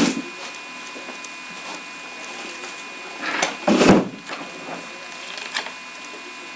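Handling of trading cards and papers: a rustle about three and a half seconds in and a few light clicks later, over a steady background hum.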